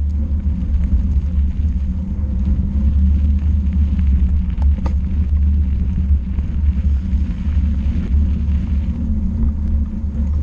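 Steady low rumble of a vehicle travelling along a rough dirt and gravel track, with a few sharp clicks about halfway through, such as small stones under the wheels.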